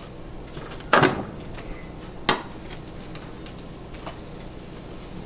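Two sharp clatters of cookware, a little over a second apart, over a steady hiss of garlic and onion frying in hot melted bacon fat.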